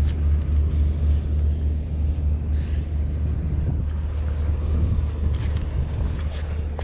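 Wind buffeting the microphone: a steady low rumble with a few faint handling clicks.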